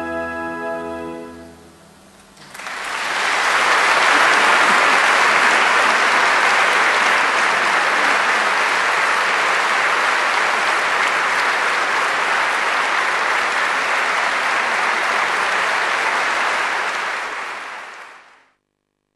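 An orchestra's last held chord dies away over the first two seconds. Then a large concert audience applauds, loud and steady, until the clapping fades out near the end.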